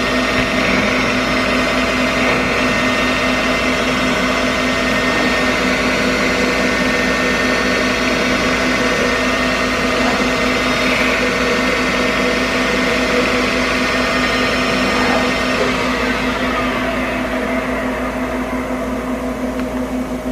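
Milltronics Partner T-17 CNC lathe running, its spindle turning a bar while the tool cuts a stepped end on it: a steady machine whine and hum. The higher part of the sound fades away over the last few seconds.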